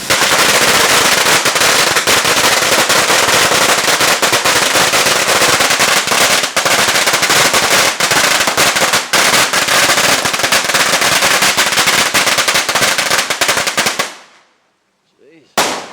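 A long string of Chinese firecrackers going off in a rapid, unbroken crackle of sharp bangs for about fourteen seconds, very loud, then stopping abruptly. Firecrackers like these are set off at temples to scare away bad luck.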